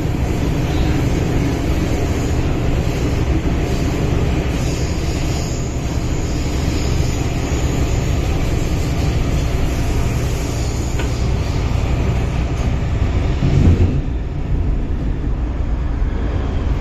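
MTR M-Train electric multiple unit heard from inside the passenger car while running: a steady rumble of wheels and running gear. About three-quarters of the way through there is a brief louder knock, after which the hiss eases.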